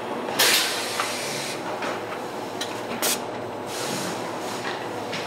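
Fish packing line conveyors running steadily. There are two short hisses of compressed air, about half a second in and again about three seconds in, from the line's pneumatic grippers, along with a few light clicks.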